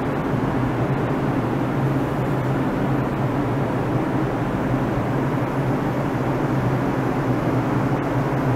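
Bombardier R142 subway train moving slowly along the track: a steady low hum and rolling noise from its motors and wheels on the rails, with no sudden knocks.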